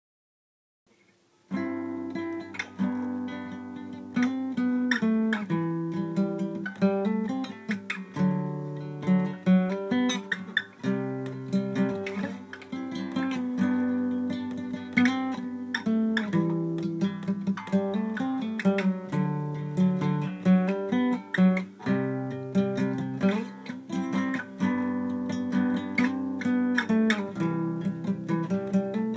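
Solo acoustic guitar picked by hand: an instrumental tune of plucked notes over a steady low bass note. It starts about a second and a half in.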